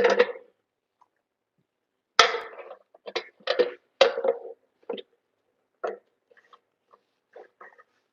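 Short, irregular scraping and knocking strokes of hand work at a metal electrical box, about a dozen, loudest at the start and between about two and four and a half seconds in.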